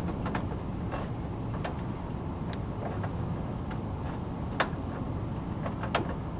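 Hood latch mechanism of a 1990 Dodge Daytona being worked back and forth after a soak in penetrating oil, giving scattered metallic clicks. Two louder clicks come about four and a half and six seconds in, over a low steady rumble. The latch had been seized.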